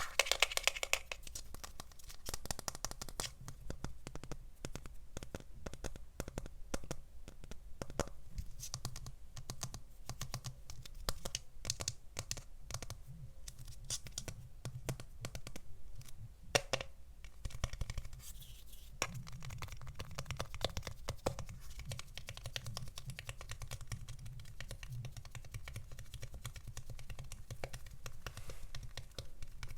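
Typing on a keyboard: a dense, uneven run of key clicks, over a steady low hum.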